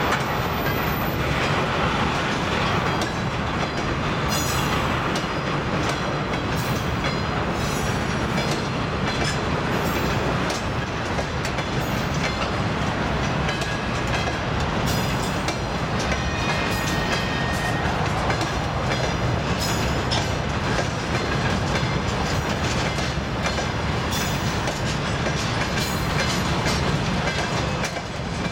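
Freight train's wagons rolling past in a steady rumble, with repeated clacks of the wheels over the rail joints.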